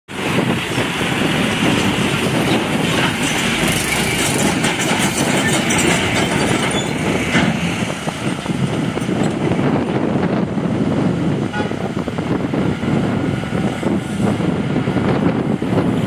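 Heavy diesel machinery running with a loud, steady rumble and clatter, from a tracked bulldozer and fire engine at work.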